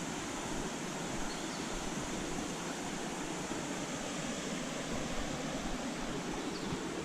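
Steady rushing of flowing water from a stream or waterfall, an even hiss with no breaks.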